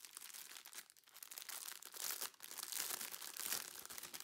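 Thin plastic crinkling as a strip of small clear bags of diamond-painting drills is handled, a crackly rustle that grows louder about halfway through.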